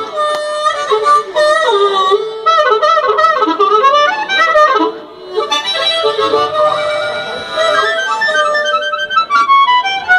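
Three blues harmonicas played together through microphones, with many bent notes and overlapping lines; the playing dips briefly about halfway through.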